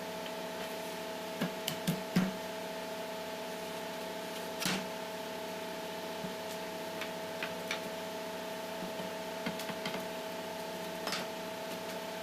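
Light clicks and knocks of oak door panel and frame pieces being handled and set down on a worktable, a few together about two seconds in and another near the middle, over a steady background hum.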